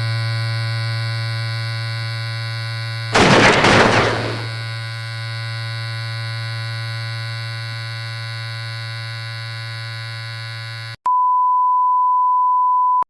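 Fictional emergency alert alarm audio: a loud, buzzy electronic drone over a strong low hum. About three seconds in, a loud burst of noise lasting about a second breaks over it, an explosion sound for the bombing alert. Near the end the drone cuts off and a single steady high beep tone sounds for about two seconds.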